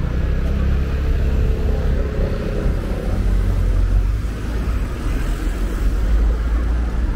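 Road traffic passing close by on a city street: cars and a scooter driving past, a steady low rumble.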